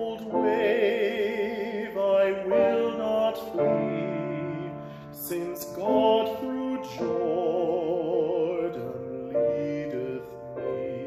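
A man singing a hymn in a classical, operatic style, with wide vibrato on long held notes, accompanied by a grand piano. The phrases come in several lines with short breaths between them, the longest held note near the end.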